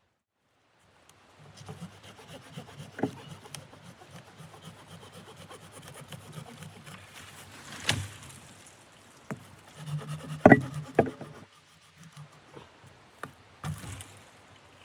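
Irregular scraping and rubbing, with several sharp knocks; the loudest knocks come in a cluster about two-thirds of the way through.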